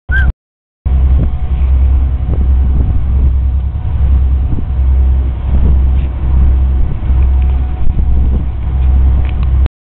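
Steady, loud low rumble of a river tour boat under way: its engine drone, heard from the open deck. The sound cuts out briefly just after the start and again just before the end.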